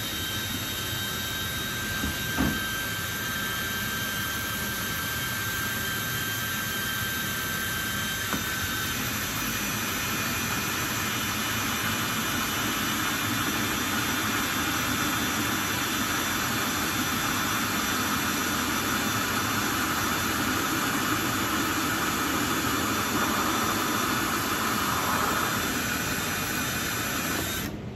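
Cordless drill with a hole saw cutting a hole through the wall of a clear plastic storage tote, running steadily with a high whine. The whine shifts in pitch about eight seconds in, there is a short knock about two seconds in, and the drill cuts off suddenly near the end.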